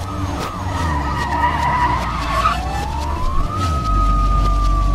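Police siren: a fast warbling yelp for the first couple of seconds, then a single tone that sweeps up and holds, slowly sinking, over a steady low hum.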